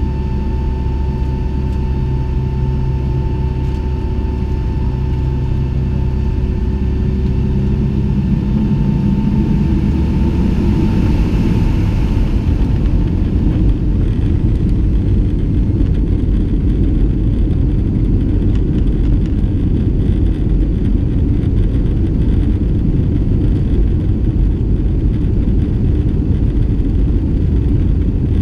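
Boeing 757-200 heard from inside the cabin while on the ground: a steady engine hum and rumble, with a thin whine that fades about ten seconds in as the rumble grows louder.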